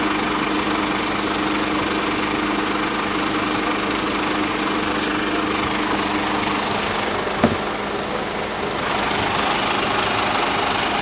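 Mercedes-Benz Actros truck's diesel engine idling steadily, with one short sharp sound about seven and a half seconds in.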